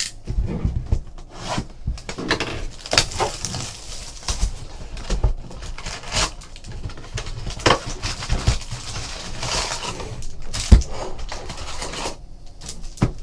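Crinkling and tearing of plastic shrink wrap and cardboard handling as sealed trading-card boxes are unwrapped and opened: irregular rustles and crackles, with a sharper snap about ten and a half seconds in.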